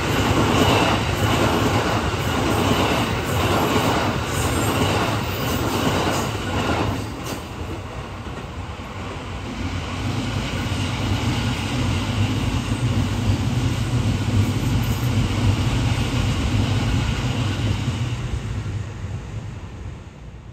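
Electric commuter trains passing at speed: a Tokyo Metro 13000 series clatters over the rail joints at an even rhythm for the first several seconds. A Tobu 70090 series then runs by with a steady rumble and a held high tone, fading away near the end.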